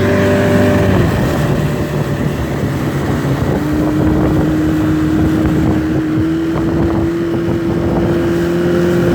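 Motorboat engine running under way. Its note drops about a second in, then holds steady over a constant rush of noise.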